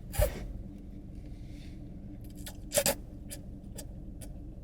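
Noisy open-mouthed chewing and lip smacking while eating noodles and shrimp: a string of short wet smacks and clicks, the loudest near the start and just under three seconds in, over a steady low hum.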